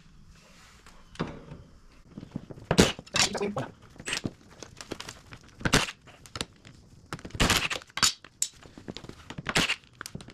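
Irregular metal clanks and knocks of hand tools on a garden tractor's steel mower deck as the blades are being taken off, some strikes sharper and louder than others.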